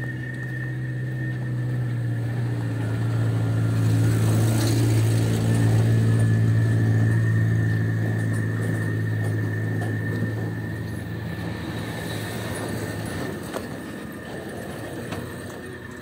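A motor vehicle's engine running steadily as it passes slowly close by. It grows louder over the first several seconds, then fades away in the second half.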